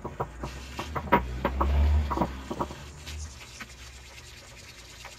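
Brush attachment scrubbing a greasy car AC compressor part in a sink of soapy water: scratching strokes with small clicks and knocks, over a low rumble for the first three seconds, then quieter.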